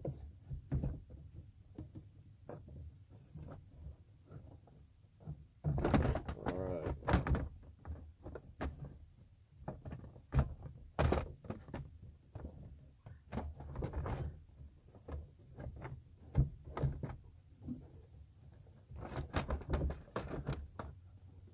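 Hummer H3's plastic fan shroud and fan clutch assembly being wiggled out past the radiator: repeated knocks, clunks and scraping, with a longer scraping stretch about six seconds in.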